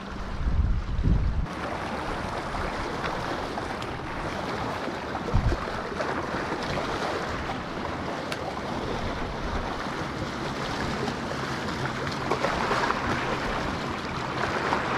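Wind over open water with small waves washing steadily against the shore. Gusts buffet the microphone with low thumps about a second in and again briefly near five seconds.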